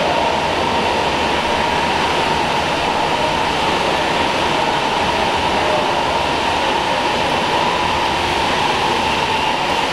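Makita cordless power wheelbarrow driving under its electric motor: a steady whine with a constant rushing noise behind it.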